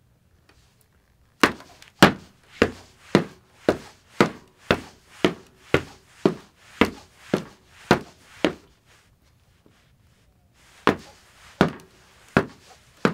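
Foley footsteps, recorded close and dry as a walk along a wooden dock: about fourteen sharp, even steps at roughly two a second, a pause of a couple of seconds, then four slower steps.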